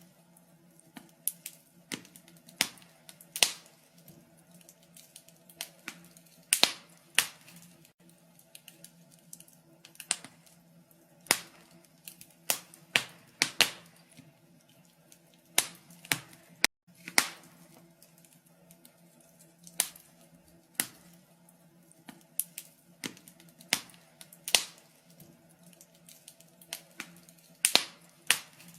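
Wood fire crackling in a fireplace: irregular sharp pops and snaps, some loud and some faint, over a faint steady low hum.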